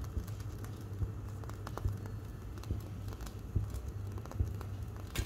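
Scattered light clicks and taps of kitchen utensils being handled, over a steady low hum.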